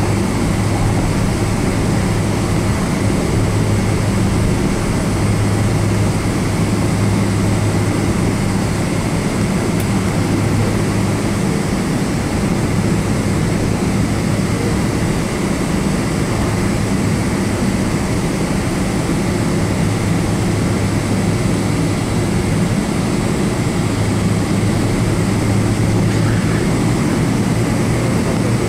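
Steady cabin noise of a Boeing 777-200ER taxiing after landing, heard from a seat over the wing: a low, even drone from the General Electric GE90 engines at taxi power and the airframe, with a faint steady high whine above it.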